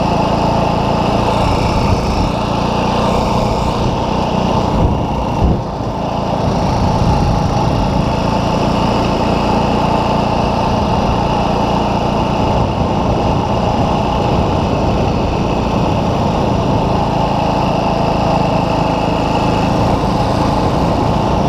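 Dirt bike engine running steadily while the bike is ridden along, with a brief dip in the engine sound about five seconds in.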